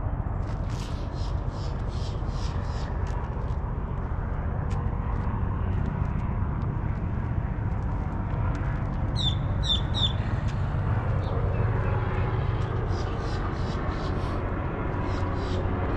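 Steady low rumble of vehicle noise, with a small bird chirping three quick times about nine seconds in.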